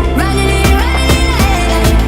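Background music with a steady beat and a sliding melody line.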